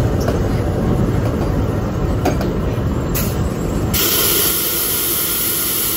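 Diesel-hauled passenger train running on the rails with a steady heavy rumble. Just after three seconds a short hiss comes in, and about four seconds in a loud hiss starts and lasts about two seconds.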